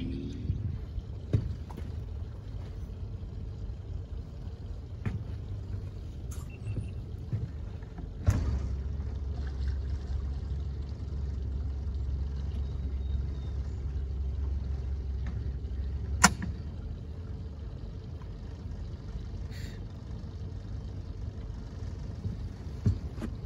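Low rumble of a small boat under way across floodwater, with a few sharp knocks on the hull. The rumble grows louder from about eight seconds in and drops back after a loud knock about sixteen seconds in.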